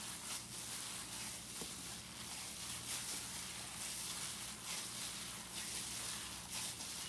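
Raw spiced beef mince being kneaded by hand in plastic gloves: wet squishing of the meat and crinkling of the plastic gloves, in irregular squeezes.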